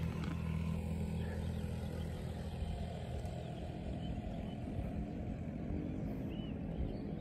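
Steady wind rumbling on the microphone outdoors, with a short faint chirp near the end.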